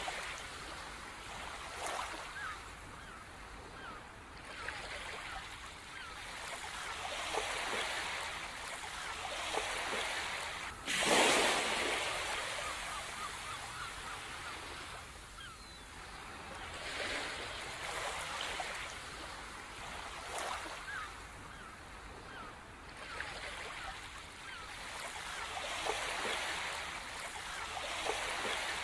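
Sea waves washing in and breaking on a shore, swelling and fading every few seconds, with one louder crash about eleven seconds in.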